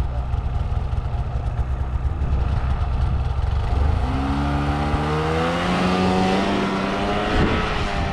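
Snowmobile engine idling with a low rumble, then from about four seconds in revving up as the sled accelerates away, its pitch climbing steadily.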